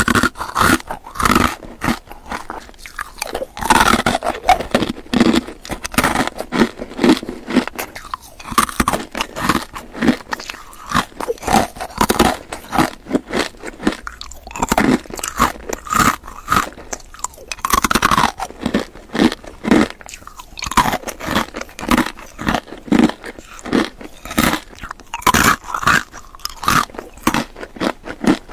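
A person chewing crunchy candy, a dense, continuous run of crisp crunches and bites, with a few louder crunches here and there.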